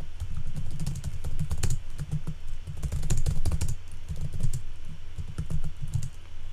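Rapid typing on a computer keyboard: quick runs of keystrokes with brief pauses between them.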